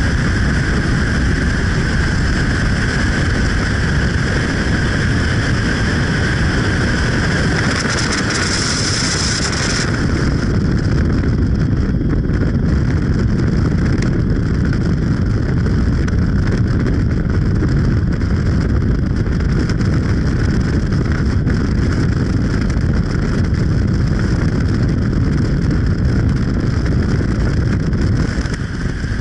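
Steady running noise of a moving vehicle: a continuous low rumble with wind noise. A higher hiss on top drops away suddenly about ten seconds in.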